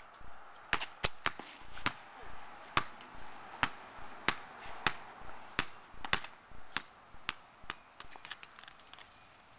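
Soccer ball bouncing and being struck on an asphalt driveway: a string of sharp, uneven thuds about twice a second, turning to lighter, quicker taps near the end.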